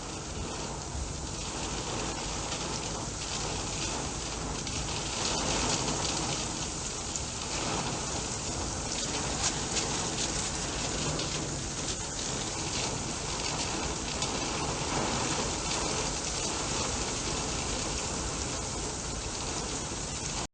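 Heavy downpour: rain pouring down in a steady hiss.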